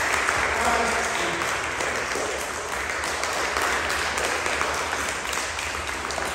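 Applause: a group of children clapping their hands, steady and fading a little toward the end.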